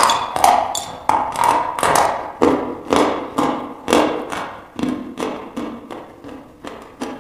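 Chewing a mouthful of dry chalk: sharp crunches about twice a second, growing fainter.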